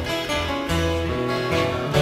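Acoustic guitars strumming an instrumental break in a country-folk song, with held melody notes and low bass notes changing about every half second.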